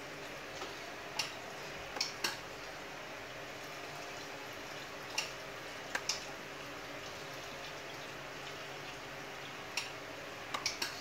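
Soldering iron on an 18650 cell terminal and nickel strip, solder flux sizzling with about ten scattered sharp crackles and spits over a steady hiss.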